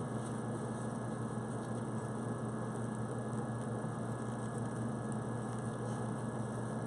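Steady low hum with an even hiss: background room noise, with no distinct sounds standing out.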